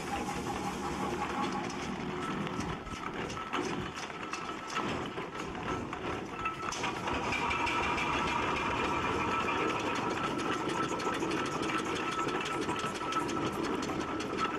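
Aveling and Porter steam road roller's steam engine running with a rapid, rhythmic mechanical clatter; a steady high tone comes in about halfway through.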